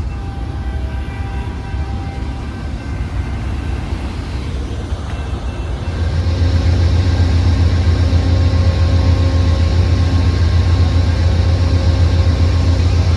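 Steady low rumble of a moving Amtrak passenger train, heard from aboard, which grows louder about six seconds in.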